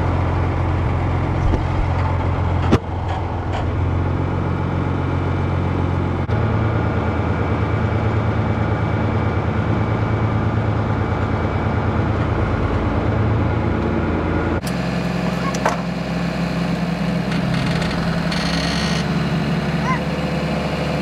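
An engine running steadily at idle, a low hum whose pitch and tone change abruptly about three seconds in, again at six seconds, and again near fifteen seconds.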